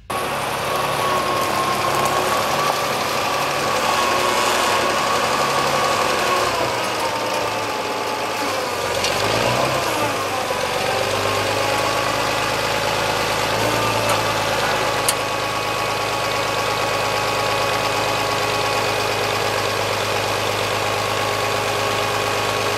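An engine running steadily at idle, with a tone that wavers a little in pitch.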